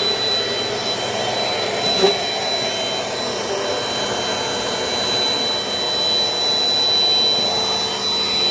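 Dirt Devil Dynamite upright vacuum cleaner running steadily, a high whine over its motor noise. There is one brief knock about two seconds in.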